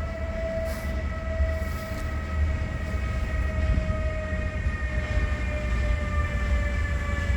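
Electric freight train with a Siemens Vectron locomotive and Eas open wagons running: a steady low rumble with a whine that slowly drops in pitch.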